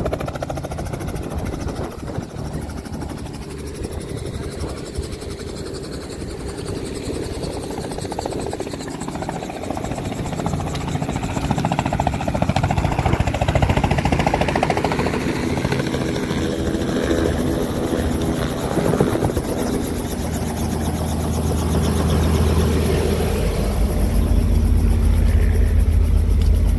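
Robinson R44 Raven I helicopter running on the ground, a steady engine and rotor hum that gets louder and deeper near the end.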